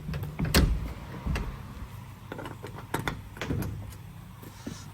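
Sheet-metal enclosure panels of a KAESER screw compressor being closed and latched: a series of knocks and clicks, the loudest about half a second in, the compressor itself not running.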